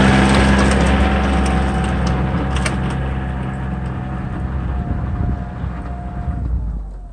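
Kioti CK2610 compact tractor's three-cylinder diesel engine running as the tractor drives past and away, fading steadily, with a few sharp clicks along the way.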